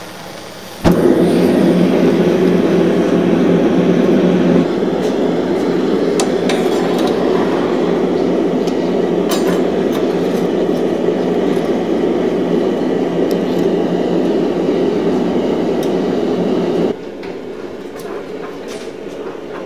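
A gas forge burner lights with a sudden rush about a second in, then runs with a steady, loud rushing noise while the forge heats up. Near the end it drops to a quieter steady rush with a few light metal clinks.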